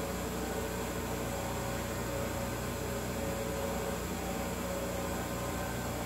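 Steady machine hum with a few faint fixed tones over a light hiss, unchanging throughout.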